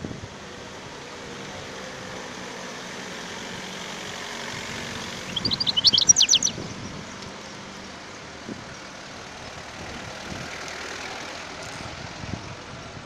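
European goldfinch giving a quick burst of high twittering notes about five seconds in, lasting about a second, over steady background noise.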